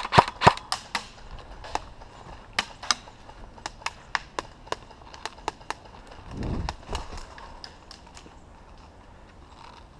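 An irregular string of sharp clicks and knocks, the loudest few coming close together at the very start, then thinning out. A brief low rumble comes about six and a half seconds in.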